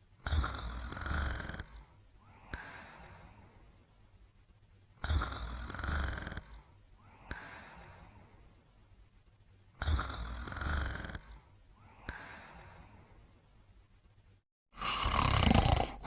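Slow, regular snoring: three loud in-breaths, each followed by a softer out-breath, about five seconds apart. Near the end a louder, different sound breaks in abruptly.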